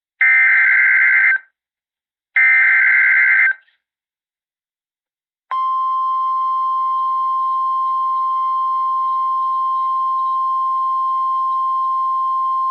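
NOAA Weather Radio alert signals: the last two of three SAME digital header bursts, harsh warbling data screeches about a second long each. After a short silence, the steady single-pitch warning alarm tone starts about five and a half seconds in and holds. This announces a new warning being broadcast, here a severe thunderstorm warning.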